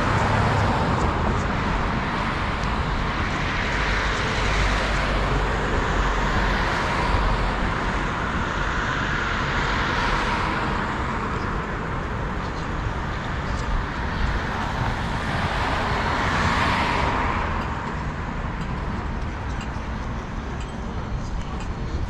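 City street traffic: steady road noise from passing cars, swelling as vehicles go by about three times.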